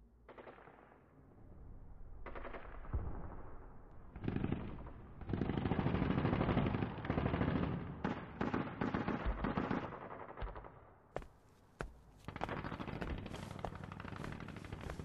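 Battle sound of machine-gun fire in repeated rapid bursts with scattered single shots. It is heaviest in the middle, drops away briefly late on, then picks up again.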